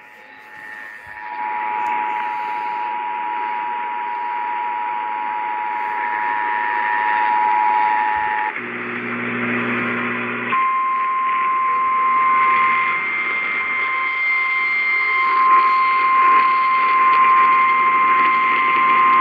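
Emergency Alert System attention signal received over AM radio static. The two-tone alert sounds steadily for about seven seconds and gives way briefly to a low hum. A single steady, slightly higher alert tone then follows for about nine seconds. Together they announce the start of a tornado warning broadcast.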